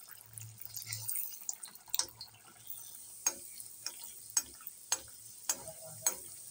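Chana dal puri deep-frying in a kadhai of hot oil: a steady sizzle with sharp crackling pops that come about every half second from about two seconds in.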